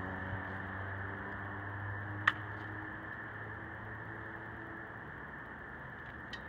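Steady outdoor background noise with a low hum, broken by one sharp click a little over two seconds in and a few fainter clicks near the end.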